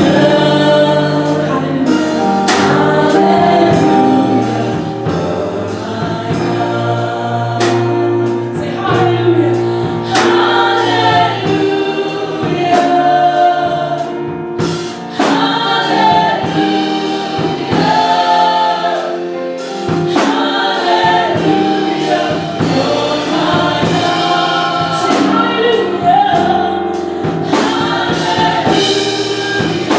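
Gospel choir singing with live band accompaniment: bass notes and a steady beat.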